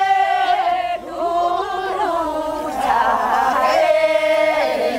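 Korean rice-paddy weeding work song (non-maeneun sori) sung for the first weeding: a group of farmers chanting a refrain together in long, drawn-out notes that step in pitch.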